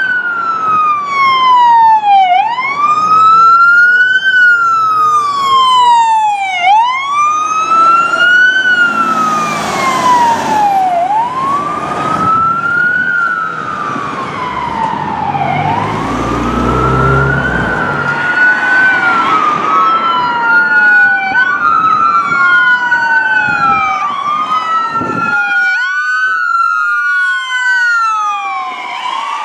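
Emergency-vehicle electronic sirens on a wail, the tone rising and falling slowly about every four seconds, from a fire rescue truck driving by. There is a brief hiss and later a deep low rumble. Near the end a second wail overlaps, and after a sudden break an ambulance siren wails.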